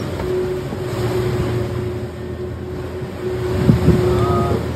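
Sailing catamaran's diesel engine running with a steady drone, under wind buffeting the microphone and the wash of waves. A single thump stands out near the end.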